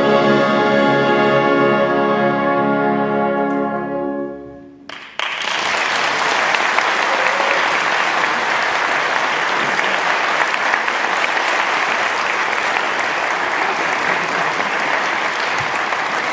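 A wind band holds its final chord, and it fades out about four seconds in. After a brief pause the audience breaks into steady applause.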